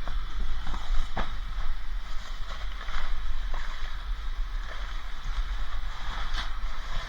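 A steady low rumble with a few sharp knocks and clatters, the clearest about a second in, around three seconds in and near the end, typical of scrap being checked and handled.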